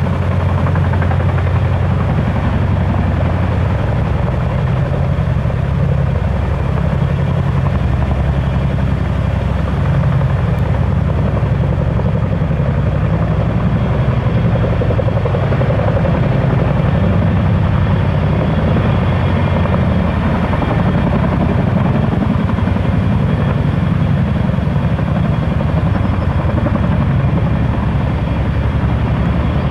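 Boeing CH-47 Chinook tandem-rotor helicopter running close by: a loud, steady, rapid rotor beat with a deep drone underneath, unchanging throughout.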